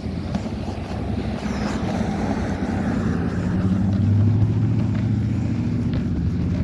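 A motor vehicle's engine running close by: a low, steady hum that grows louder over the first four seconds and then holds.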